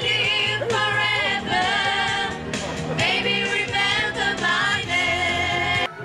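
A group of women singing together with a musical accompaniment, played loud through a PA system. The music cuts off suddenly near the end.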